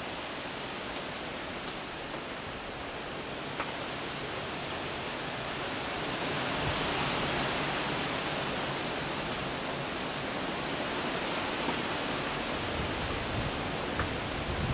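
Gusty hurricane wind rushing through trees and shrubs, swelling about halfway in and staying up. Over it, an insect chirps at a high pitch in a steady pulse, about three chirps a second.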